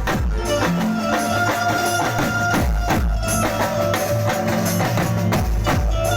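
Live instrumental garba music over a sound system: a steady percussion beat with low bass thumps under held melody notes, with no singing.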